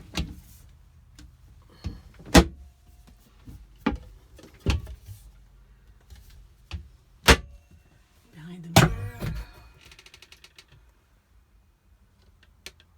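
Cupboard doors and their catches being opened and shut: a series of sharp knocks and clicks, the loudest about nine seconds in, followed by a quick run of fine ticks.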